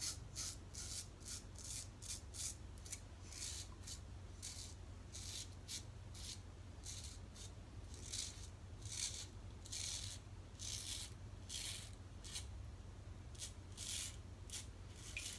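Merkur Futur safety razor with a new Feather blade cutting through lathered stubble in short, repeated strokes, about two or three a second, each a brief high-pitched scratchy rasp.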